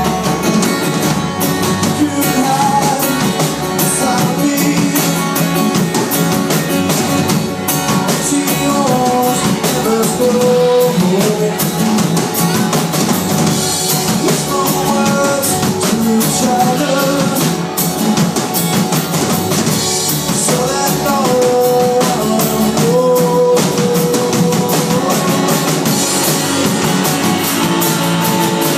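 Rock band playing live, drum kit and guitar carrying a long stretch between the sung verses.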